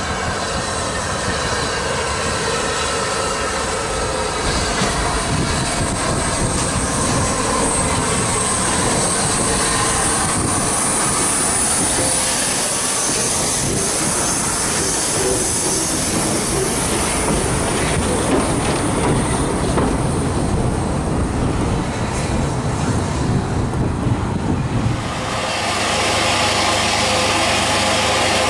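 Rebuilt Bulleid Battle of Britain Pacific No. 34053 'Sir Keith Park' and its train passing close by. The wheels squeal high and clatter over the rail joints as the carriages roll past. About 25 seconds in, it changes abruptly to a steadier hum and hiss.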